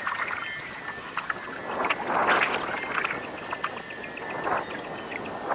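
Choppy river water splashing and lapping against a kayak in a few swelling surges, the biggest about two seconds in.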